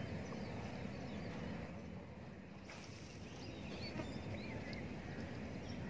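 Open-air lakeside ambience: a steady low rumble with faint bird chirps in the middle and a light click about four seconds in.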